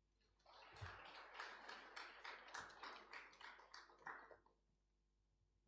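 Faint audience applause, a patter of many hand claps that dies away after about four seconds.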